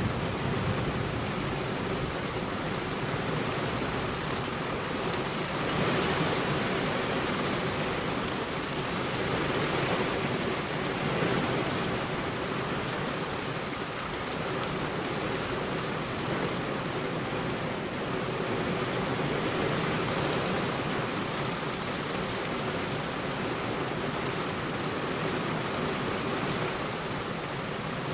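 Heavy rain falling on a road: a steady, dense hiss of drops that swells slightly a few times.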